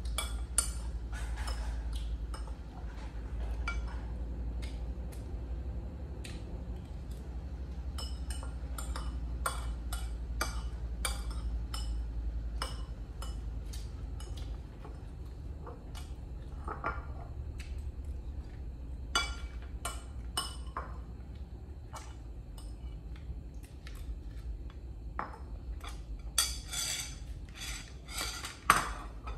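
A spoon clicking and clinking against a dish again and again at an uneven pace, with a burst of louder clinks near the end, over a steady low hum.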